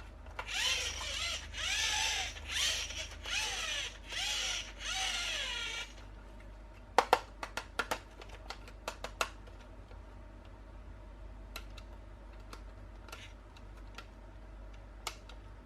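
A battery-powered toy's electronic sound effects: warbling, sweeping tones over a hiss for about six seconds. Then a handful of sharp plastic clicks and taps.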